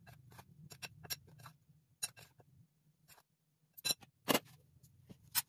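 Metal spoon clicking and scraping against a glass bowl as dry gram flour and spices are stirred together: a run of light, irregular clicks, with a few sharper taps in the last second and a half.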